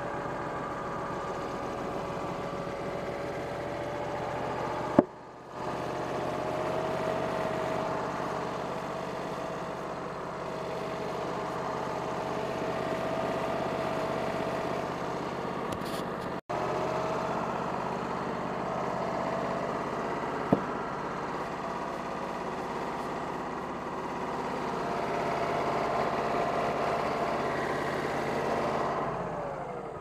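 Wood-Mizer portable band sawmill running steadily under load as its band blade cuts through an apple log, with a sharp click and short break about five seconds in. Near the end the pitch falls and the sound fades as the cut finishes and the machine throttles down.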